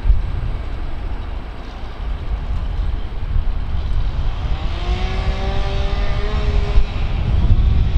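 Train running past with a heavy low rumble. From about five seconds in, a whine of several pitched tones joins for about two seconds, rising slightly in pitch.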